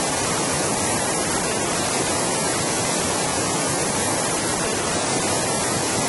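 Namtok Phlio waterfall: a steady, unbroken rush of falling water and spray.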